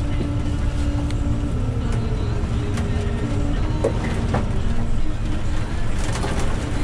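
Inside a moving bus's passenger cabin: a steady low rumble of the engine and road noise, with a steady drone and a few small rattles and clicks.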